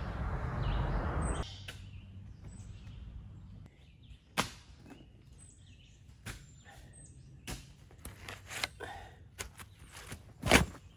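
Round-point shovel digging a trench in rocky, root-filled soil: irregular thuds and crunches as the blade is driven in, the loudest one near the end. It opens with about a second and a half of low rushing noise.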